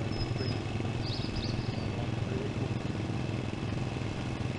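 Stationary engines running, a steady low drone. Short high bird chirps come twice in the first second and a half.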